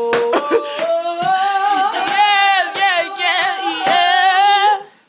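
A voice singing one long held note whose pitch wavers and slides, with scattered sharp hits over it; the note stops shortly before the end.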